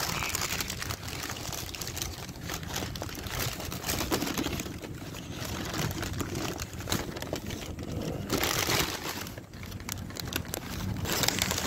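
Paper sandwich wrapper crinkling and rustling as it is unwrapped by hand: irregular crackling all through, louder about two-thirds of the way in and again near the end.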